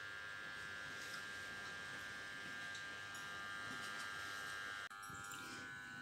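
A steady, faint electrical hum with a thin high whine over light hiss. It drops out for an instant about five seconds in, then carries on unchanged.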